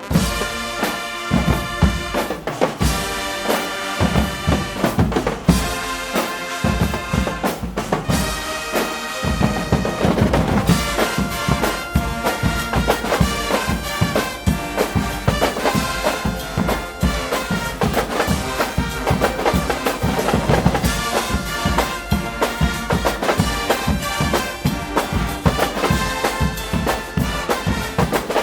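Guggenmusik band playing live: brass (trumpets and trombones) over bass drum and snare drums in a steady, driving beat. About nine seconds in, the drumming grows denser and fuller.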